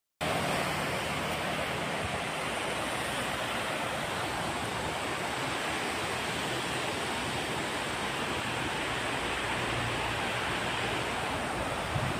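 Water rushing steadily over a low concrete river weir.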